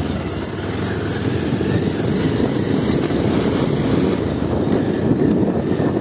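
Motorcycle engine running steadily while riding, heard from on the bike.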